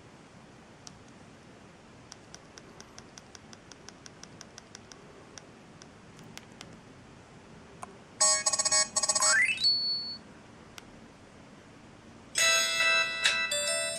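Samsung SGH-i560 mobile phone playing ringtones through its loudspeaker. A run of faint quick clicks comes first. About eight seconds in, a loud electronic ringtone sounds for about a second and a half and ends in a rising sweep. Another ringtone starts near the end.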